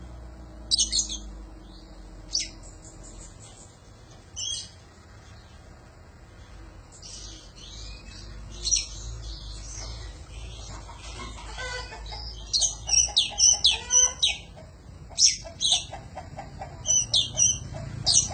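Oriental magpie-robin (kacer) singing: scattered sharp chirps and whistled notes at first, then a quick run of loud, varied notes from about twelve seconds in, over a low steady hum.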